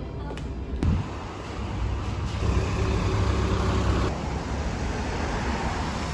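Road traffic: a motor vehicle's low engine rumble that grows louder between about two and four seconds in, over a steady traffic hiss. A single thump comes about a second in.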